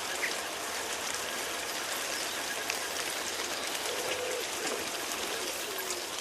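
Steady rain falling on a hedgerow, with a few faint low calls about four seconds in.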